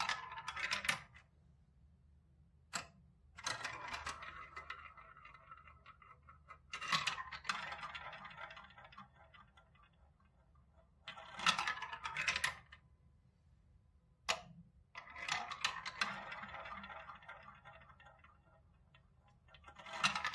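Plastic balls rolling one at a time through a plastic building-block marble run, each run a rattling roll through the tubes and spiral funnels that ends in clacks as the ball drops and knocks into the balls lined up in the bottom track. About five such runs, with quiet gaps between them and a couple of single sharp clicks.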